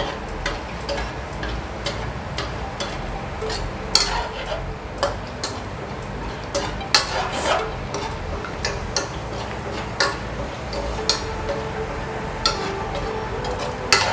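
Sweet potato gulab jamun balls deep-frying in hot ghee: a steady sizzle with sharp crackles and pops at irregular intervals, as the balls brown.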